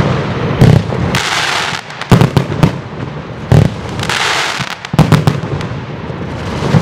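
Geisha Burning Heart 106-shot compound firework battery firing: a quick series of sharp launch shots and bursting bangs, with two stretches of hiss about a second and four seconds in.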